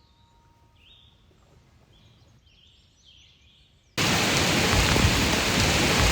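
Heavy rain pouring down, starting abruptly about four seconds in. Before it there is only a faint background with a few soft, high chirps.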